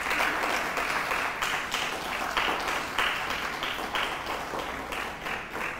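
Audience applauding: many people clapping together, tapering off slightly near the end.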